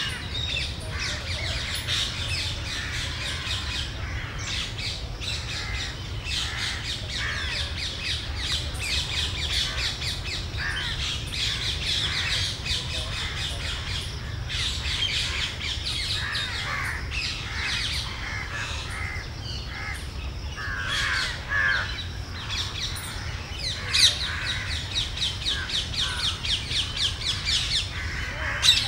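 Birds calling and chattering, many overlapping calls with a fast run of repeated notes near the end and two sharp, louder notes standing out. A steady low hum runs underneath.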